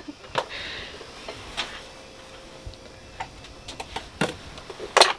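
A scatter of light, irregular clicks and taps, with a sharper knock near the end, over a faint steady hum.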